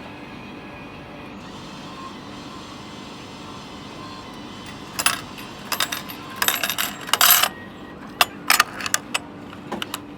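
Coins clinking and dropping into a vending machine, a run of sharp metallic clicks and clinks that starts about halfway through over a steady background hum.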